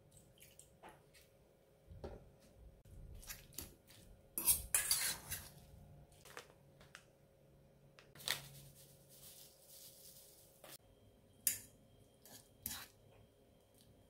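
A metal fork clinking and scraping against a stainless steel bowl while mixing crumbled food, in many short clicks. Crinkly rustling from a plastic seasoning bag comes in two stretches, a third of the way in and again past the middle.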